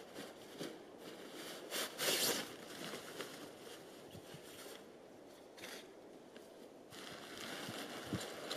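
Rustling and handling noises of a tent being pitched, with a louder rustle about two seconds in.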